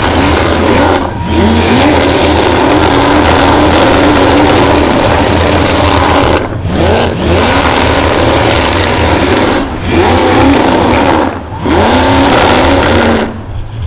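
Supercharged 427-cubic-inch V8 in a Commodore ute held at high revs through a burnout. The revs drop briefly and climb back about six times.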